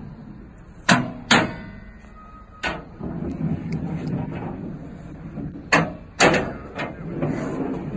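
Aluminium drawers with divided compartments rolling out and in on their runners, with sharp metallic clunks as they hit their stops, six in all.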